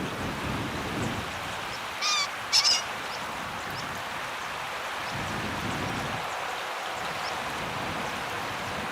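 Green pheasant giving its two-note crow, two short harsh calls close together about two seconds in, over a steady background hiss.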